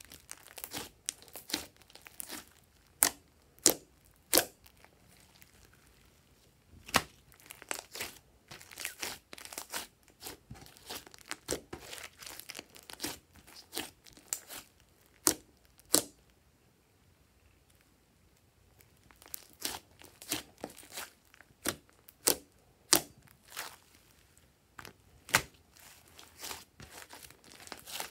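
Thick pink slime, clear slime mixed with makeup, clay and foam, being squeezed, stretched and pressed by hand. It gives irregular sticky pops and crackles, with a few short pauses.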